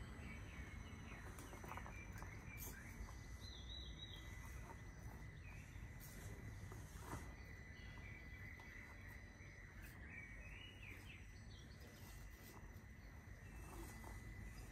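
Faint outdoor ambience, a steady low rumble with a few birds chirping now and then.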